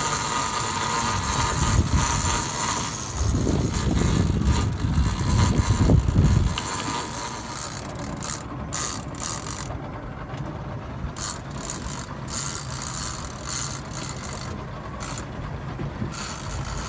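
Heavy conventional big-game reel on a stand-up rod under load from a hooked bigeye tuna, ratcheting as line is cranked in and given. A low rumble runs under it and drops off about six seconds in.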